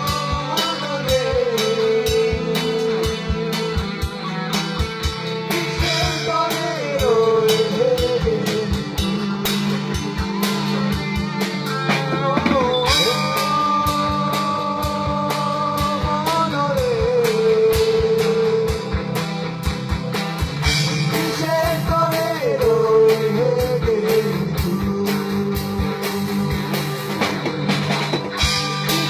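Rock band jamming: a drum kit keeps a steady beat under guitar, with a lead line of long held notes that bend and slide between pitches.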